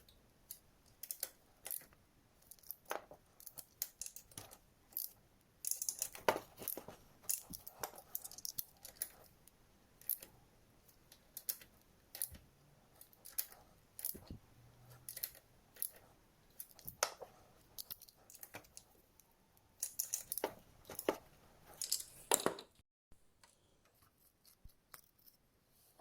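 Irregular clicks, light metallic taps and short scrapes of hand tools and small engine parts being handled during scooter engine reassembly.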